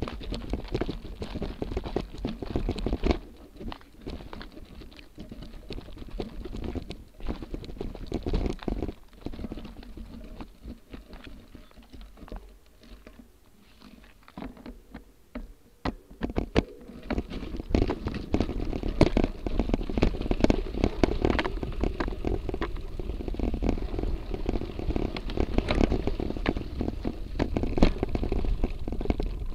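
Motobecane Fantom Cross gravel bike rolling over a loose, rocky trail: constant crunching and rattling of the tyres on stones and of the bike over the bumps. It quietens for a few seconds around the middle, then turns louder with a heavier low rumble from a little past halfway.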